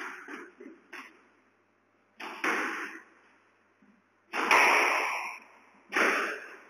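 Squash rally: the ball cracking off rackets and the court walls, five or six sharp hits a second or so apart, each with an echoing decay in the enclosed court, the loudest a little past the middle.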